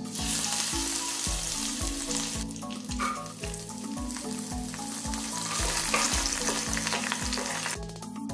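Hot oil sizzling loudly as curry leaves and then fresh coconut pieces are dropped into it, with a brief lull a few seconds in; the sizzle cuts off suddenly near the end. Background music with a steady beat underneath.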